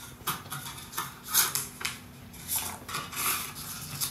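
Small objects being handled: irregular light clinks and rustles, several short bursts a second, loudest about a second and a half in.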